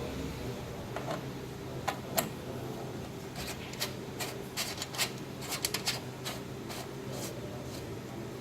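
A run of sharp clicks and short scraping, rubbing sounds, like objects being handled and moved, bunched between about two and seven seconds in, over a steady low hum.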